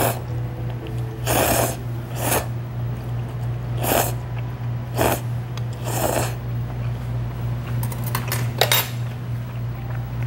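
A person slurping ramen noodles: five short slurps in the first six seconds, roughly a second apart. A few light clicks, likely chopsticks against the bowl, come about eight seconds in, and a steady low hum runs underneath.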